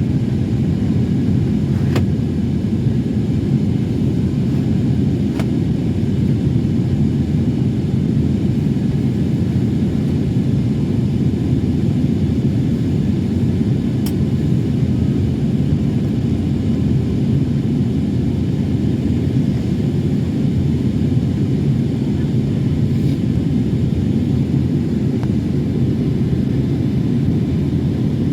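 Steady low rumble of an Airbus A321neo airliner in flight, heard from inside the cabin, with a few faint clicks.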